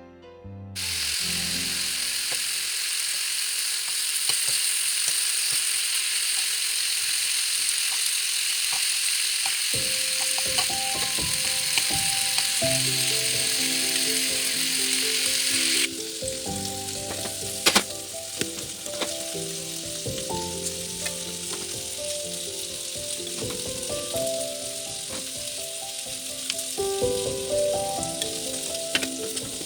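Food frying in a pan with a steady sizzle, which becomes quieter about halfway through, and a few sharp clicks. Gentle background music comes in about ten seconds in.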